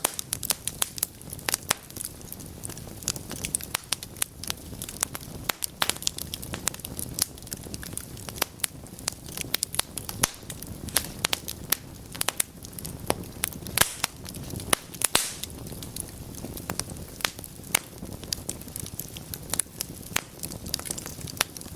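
Wood fire burning in a fireplace: logs crackling with many sharp, irregular pops and snaps over a low steady rush of flame.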